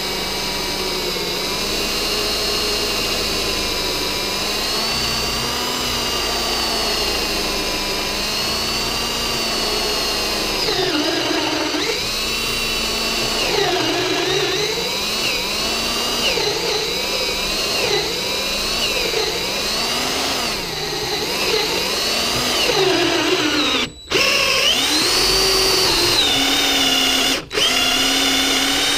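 DeWalt DCD771 cordless drill running under load as it bores a hole through a copper pipe jig held in a vise. The motor whine holds steady at first, then rises and sags in pitch as the load and trigger vary, and it cuts out briefly twice near the end.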